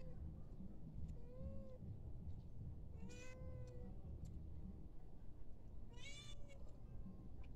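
Domestic cat meowing three times, each meow a short call that rises and falls in pitch, about a second and a half, three and a half and six seconds in; the middle meow is the loudest.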